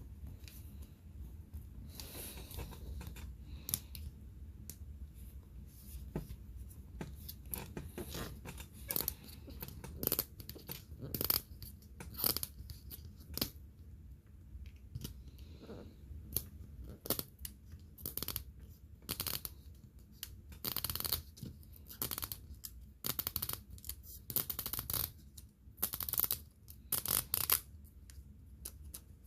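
Small toy packaging being opened and handled: a run of short rasping tears and crinkles of thin plastic wrap, with light clicks and taps of small pieces.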